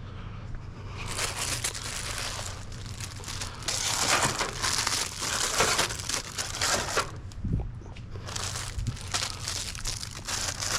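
Plastic packaging crinkling and rustling as restock products are handled, in two long stretches with a short pause about seven seconds in.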